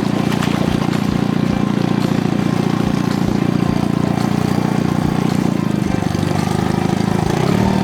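Boat's outboard motor running steadily at trolling speed, its pitch shifting briefly near the end.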